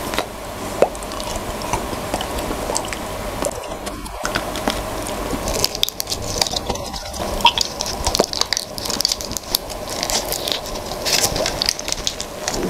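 Close-miked biting and chewing of a chocolate bar, with the bar's foil wrapper crinkling in the hands from about halfway through.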